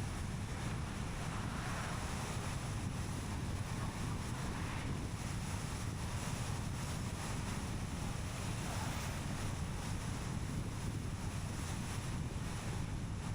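Car driving at steady speed: continuous tyre and road rumble with wind noise, heavy in the low end, with a few slight swells in a higher hiss.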